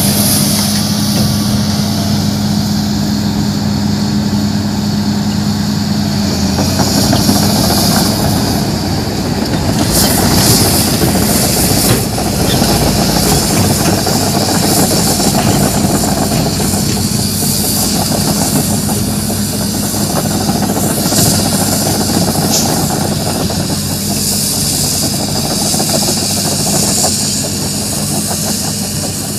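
Hitachi crawler excavator's diesel engine running steadily as the machine travels away on its tracks, the engine hum growing weaker after the first few seconds.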